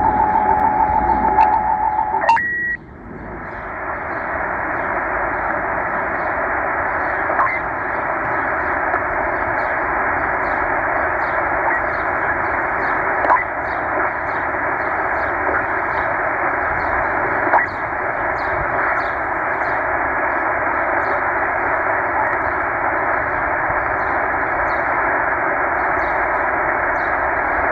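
Tecsun H-501x shortwave receiver in upper sideband, opening on a steady tone from a signal at 13560 kHz that cuts off about two and a half seconds in. After that the radio gives an even hiss of band static with a few faint clicks while it is tuned down through empty frequencies.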